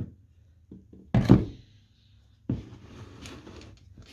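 A chainsaw part set down on a workbench with a single loud thunk, followed a second later by a clatter and about a second of scraping and rattling as the metal parts are handled.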